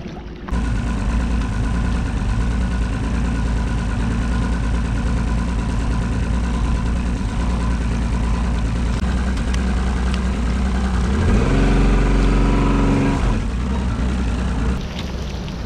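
Boat outboard motor running steadily. About eleven seconds in it rises in pitch and grows louder for a couple of seconds, then eases back and drops off near the end.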